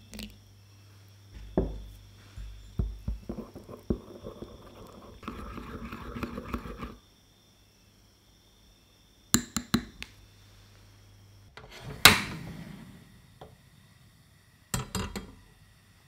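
A wire whisk beating flour and water into a thin batter in a ceramic bowl, tapping and scraping against the bowl for several seconds. After a pause come a few sharp clicks and a single loud metal-on-stove clank with a short ring, then more clicks.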